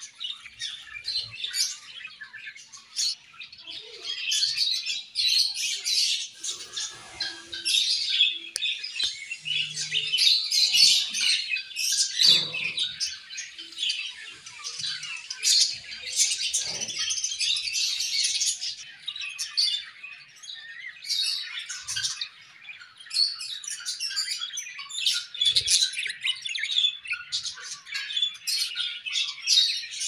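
A flock of budgerigars chirping and warbling, many birds calling over each other without a break; the chatter is busiest in the middle and again near the end.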